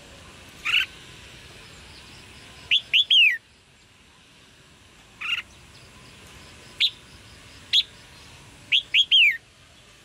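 Red-whiskered bulbul giving short, sharp chirping calls: single notes spaced a second or two apart, and twice a quick group of three notes, the last two sliding down in pitch.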